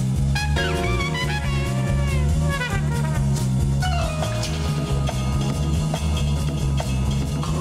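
Instrumental jazz played by a band: a walking bass line under a drum kit, with a lead melody of sliding, bending notes.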